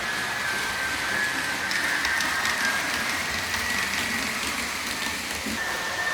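H0-scale model ICE3 trainset running with its ESU sound decoder playing ICE3 running sounds: a steady hiss under a high electric whine that shifts a little in pitch, with a few faint ticks about two seconds in.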